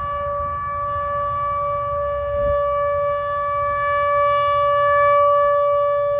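ATI HPSS-16R electronic tornado siren sounding a loud, steady single-pitch tone during its test. The loudness swells and eases slowly.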